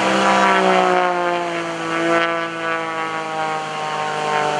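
Pitts S-1S aerobatic biplane flying overhead, its piston engine and propeller droning loud and steady, the pitch falling slowly.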